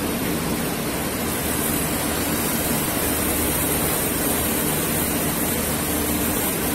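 Oxy-fuel brazing torch hissing steadily as it heats the copper discharge-line joint on a scroll compressor to unbraze it, with a low steady hum underneath.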